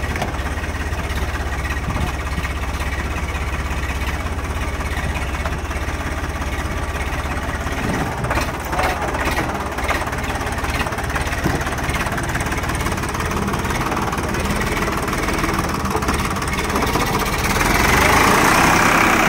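Eicher 551 tractor's diesel engine running at low revs, a steady low rumble. A few knocks come about halfway through, and the engine grows louder near the end.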